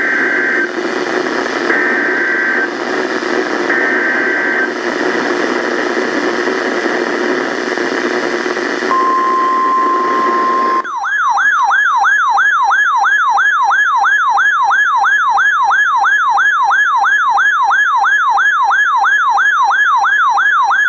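NOAA Weather Radio broadcast heavy with static, carrying three short two-tone data bursts (the Emergency Alert System header), then a brief steady alert tone near 1 kHz. About 11 seconds in, a loud electronic siren alarm takes over, warbling up and down about three times a second, and the static drops out.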